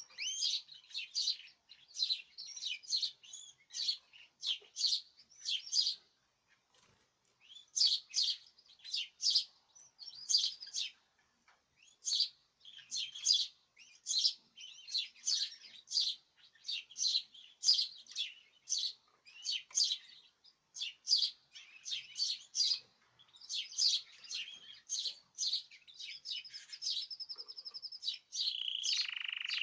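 Caged songbirds chirping and singing together in quick high-pitched bursts, with a couple of short pauses and one held whistled note near the end.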